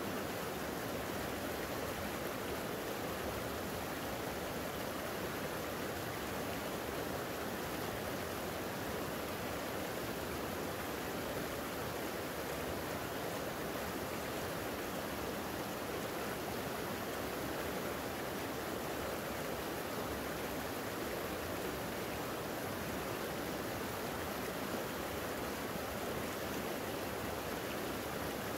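Creek water flowing steadily: an even, unbroken wash of water noise that holds the same level throughout.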